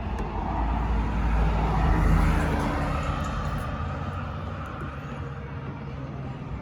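A motor vehicle passing by, its low rumble swelling to its loudest about two seconds in and then slowly fading.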